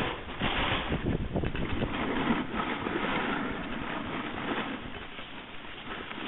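Wind rushing over the microphone and the hiss and scrape of sliding over packed snow, from a camera carried while riding down a ski slope. The noise is rough at first and gradually dies down.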